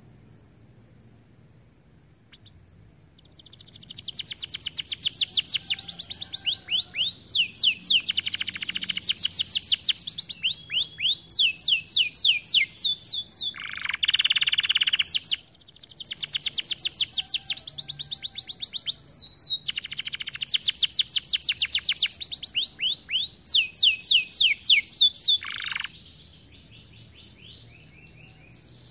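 Canary singing: long runs of rapid, falling trills, broken by a harsher buzzy phrase near the middle and a short one just before the song stops a few seconds before the end. A faint steady high tone is heard for the first few seconds before the song starts.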